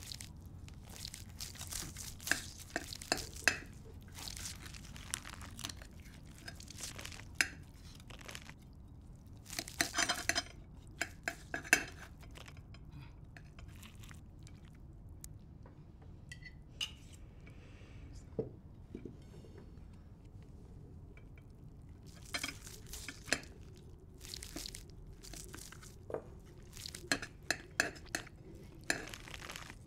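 Knife and fork carving a whole roast chicken on a serving platter: irregular clinks and scrapes of metal cutlery against the plate, coming in clusters with quieter stretches between.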